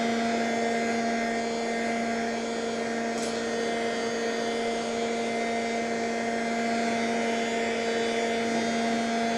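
Electric heat gun (ZENIT) running steadily, its fan blowing hot air with a constant hum, held against a plastic bumper to soften it.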